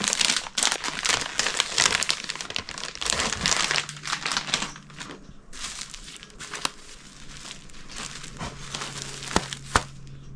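Clear plastic saree packaging crinkling and crackling as it is handled and opened: dense crinkling for about the first five seconds, then only a few scattered crackles.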